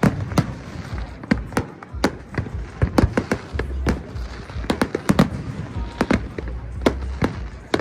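Aerial fireworks bursting: rapid, irregular cracks and bangs, several a second, over a continuous low rumble of booms.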